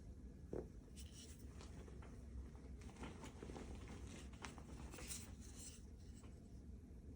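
Faint handling noises: a soft knock about half a second in, then scattered light clicks and scratchy rustles over a low steady hum.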